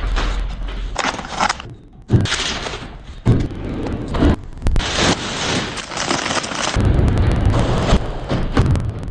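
Kitchen restocking handling sounds: a few sharp knocks and thumps of containers and items being set down, between stretches of rustling, hissing noise from packaging or contents being handled.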